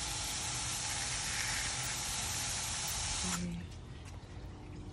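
Water spraying from a pistol-grip garden hose nozzle into a planter bed, a steady hiss that cuts off about three seconds in.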